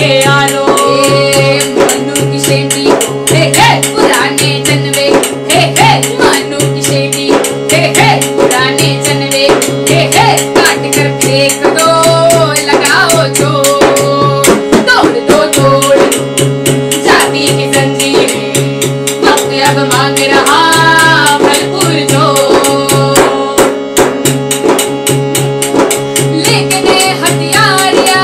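Women singing a song in Hindi, accompanied by sustained keyboard chords and a hand drum with jingles keeping a steady beat.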